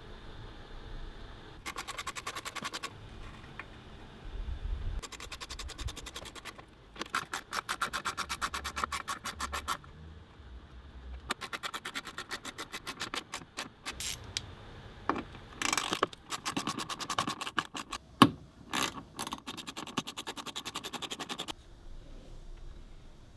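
Ratchet wrench clicking in quick, even bursts of one to three seconds with short pauses between, as nuts and bolts are turned. There is one sharp metallic knock about eighteen seconds in.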